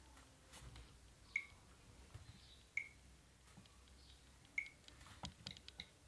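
Faint short high beeps a second or two apart, then a quick run of clicks near the end: a smartphone's touch and keypad sounds as its screen is tapped.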